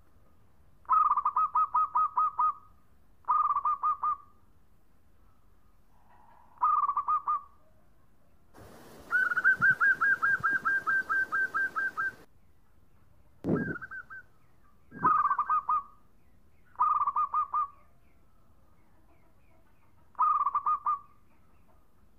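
Male zebra dove (perkutut) singing: about eight short phrases of rapid, staccato cooing notes, each phrase a second or so long, with pauses between. One phrase about nine seconds in is longer and a little higher than the rest.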